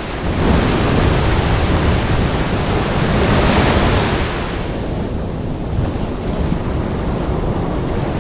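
Ocean surf breaking on the beach: a wave swells about half a second in and washes out after about four seconds, with wind buffeting the microphone throughout.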